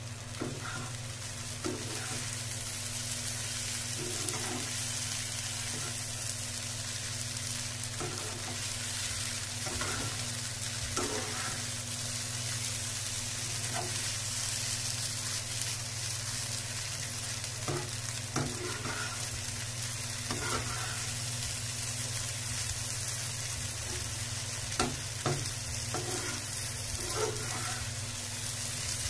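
Poha with mung dal sizzling in a nonstick frying pan while it is stirred and turned with a metal spatula. The spatula makes scattered scrapes and short clicks against the pan, the sharpest near the end, over a steady low hum.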